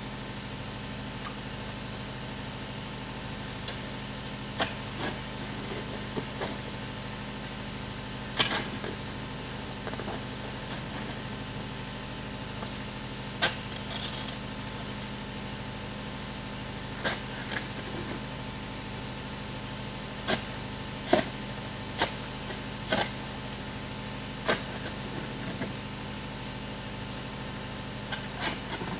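Irregular sharp scrapes and knocks, about fifteen in all, from a long-handled garden tool working sand and gravel. A steady low mechanical hum runs underneath.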